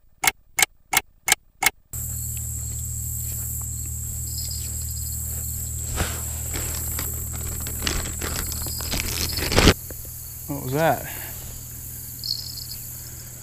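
About five quick, evenly spaced clock ticks, a time-passing sound effect, then a steady chorus of insects over a low hum. The insects drop away about ten seconds in, and a short spoken word follows.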